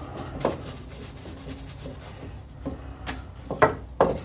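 A brush scrubbing grime off a metal bar clamp, followed by a few light clicks and knocks in the last couple of seconds.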